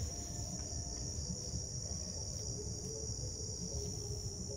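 Crickets chirring in a steady, unbroken high-pitched drone, with a faint low rumble underneath.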